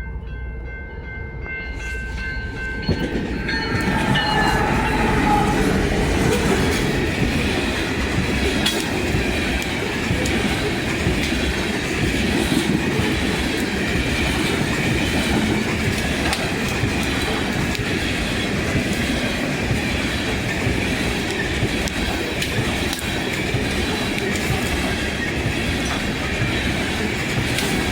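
A train passing close by. A steady chord of horn tones sounds for the first few seconds and drops in pitch as the train arrives. Then comes the continuous loud rumble and clickety-clack of wheels on the rails.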